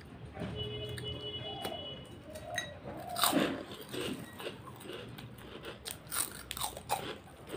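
A person crunching and chewing a mouthful of food with crisp fried papad, in irregular crackly crunches, loudest about three seconds in.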